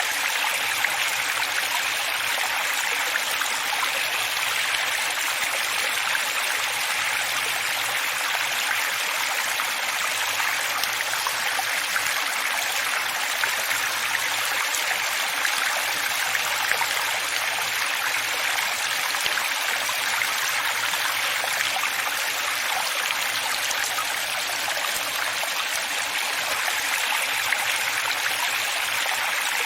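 Running water flowing steadily: an even, unbroken splashing rush with no deep rumble.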